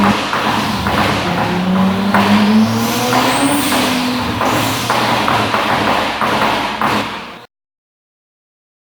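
Turbocharged 2JZ inline-six engine running and being revved, its pitch climbing a couple of seconds in, then the sound cuts off abruptly about seven and a half seconds in, leaving silence.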